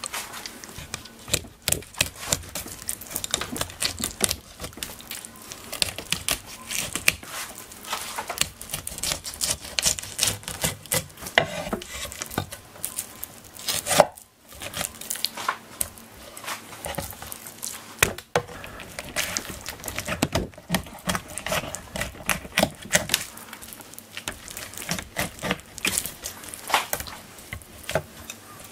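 Kitchen knife filleting a Japanese stargazer on a wooden cutting board: quick, irregular clicks and scrapes as the blade cuts through flesh and skin and taps the board, with a couple of sharper knocks around the middle.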